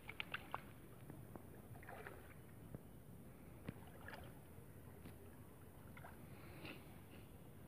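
Faint lapping and sloshing of shallow water around wading legs and hands, with a few soft ticks and small splashes as a fish is worked out of a nylon gill net.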